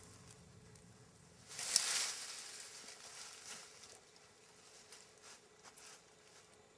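Branches and vines rustling and scraping against the shelter's wooden poles as they are pulled and worked through the frame, with one loud rustling burst about a second and a half in and a few light twig snaps and clicks after it.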